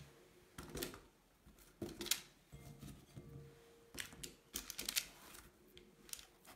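Raw potato chunks being set down and pushed about by hand in a metal baking tray lined with parchment paper: irregular light knocks, clicks and paper rustles.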